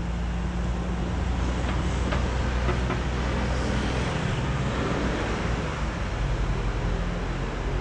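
Road traffic noise at a city junction: a steady hum with a low drone and a car passing about four to five seconds in.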